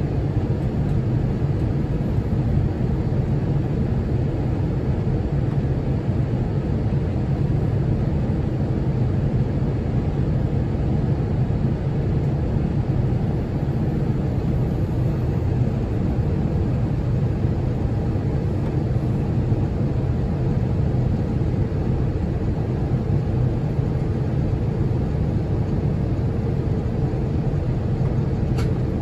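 Steady cabin noise inside an Airbus A350-900 in flight: the even rumble of airflow and its Rolls-Royce Trent XWB engines, with a faint steady hum on top.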